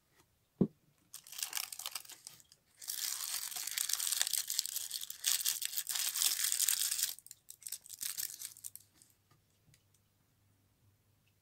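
Thin black wrapping paper crinkling and rustling as it is handled, in bursts, loudest for about four seconds in the middle. A short low knock comes about half a second in.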